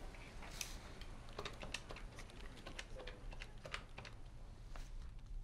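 Desk phone handset lifted and its keypad buttons pressed: a dozen or so short, irregular plastic clicks.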